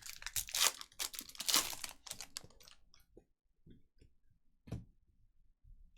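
Trading-card packaging and cards being handled: a couple of seconds of rapid crinkling, tearing and rustling, then a few light scattered clicks and taps.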